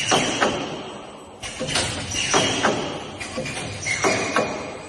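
Wire spot welding machine working: groups of sharp metallic thumps and clanks with a brief ringing after them, in several bursts, as the welding heads press down on the wire and sheet.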